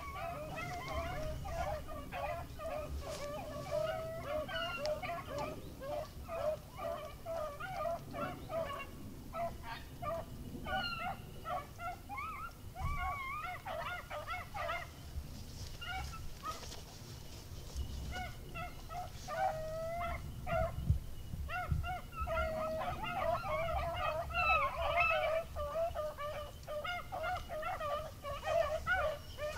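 A pack of beagles baying as they run a rabbit's track: many overlapping, wavering bawls, thinning out about halfway and coming thicker again toward the end.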